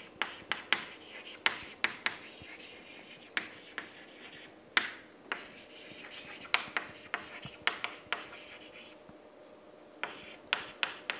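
Chalk writing on a chalkboard: irregular sharp taps as the chalk meets the board, with soft scratching strokes between them.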